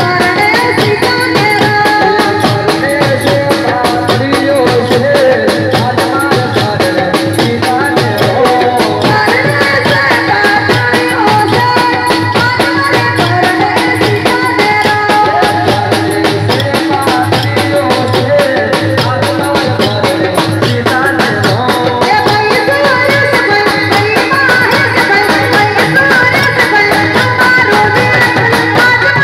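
Live amplified folk music: a woman singing into a microphone over a steady, driving dhol drum beat and accompanying instruments.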